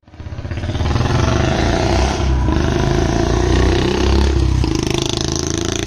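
Royal Enfield Bullet 350 (2022 BS6) single-cylinder engine running through a long Punjab aftermarket exhaust as the motorcycle is ridden past. The sound comes up just after the start, is loudest through the middle and eases a little near the end. With the catalytic converter still fitted, the note comes through properly, only slightly less loud.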